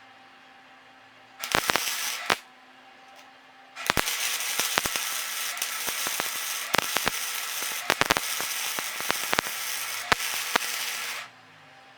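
A hand scraper worked across the steel desk top, lifting paint softened by paint stripper: a short scrape about a second and a half in, then a long run of scratchy scraping studded with sharp clicks from about four seconds in until shortly before the end.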